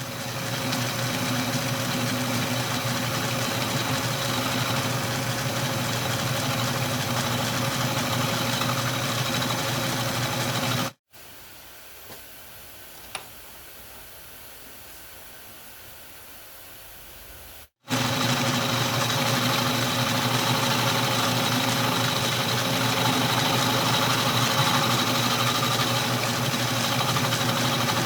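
Atlas 10-D metal lathe running steadily with its milling attachment, milling a flat on a square bolt head. About eleven seconds in the machine noise cuts off abruptly to a much quieter stretch with one small click, and the running machine comes back abruptly about seven seconds later.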